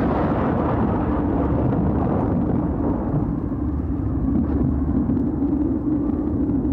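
Deep, steady rumble of storm wind driving dust, with a hissing gust fading in the first second.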